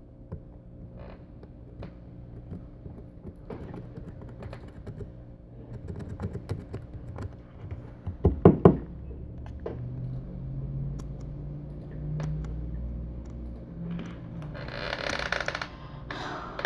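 Metal tweezers scraping and picking inside a Samsung Galaxy J7's micro-USB charging port to clear out dust, a run of faint ticks and scratches. A few louder knocks come about eight seconds in, and a short hiss near the end.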